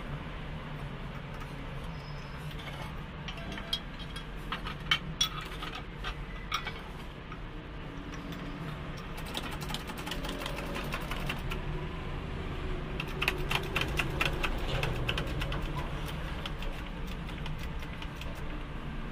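Sharp metallic clicks and clinks as a KTM Duke shock absorber is worked in a steel spring-compressor jig, coming in quick clusters over a steady low background hum.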